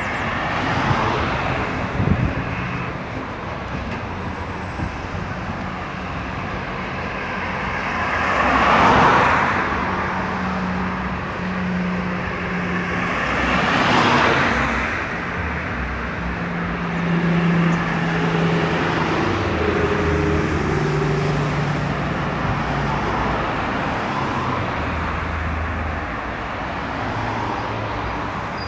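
Road traffic passing on a highway: a steady wash of engine and tyre noise, with two louder vehicles going by about nine and fourteen seconds in, and the low hum of engines running throughout.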